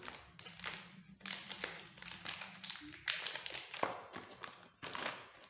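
Small parts being handled in a clear plastic compartment box: a quick, irregular run of plastic taps and clicks with rustling.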